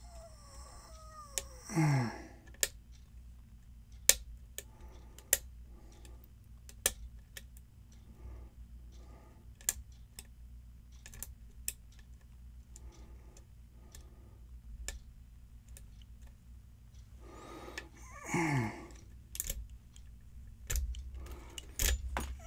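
Lock pick and tension wrench working the pins of a pin-tumbler challenge lock: a string of sharp, irregular small metal clicks and scrapes as pins are set. Twice a short downward-sliding sound stands out, about two seconds in and again near eighteen seconds.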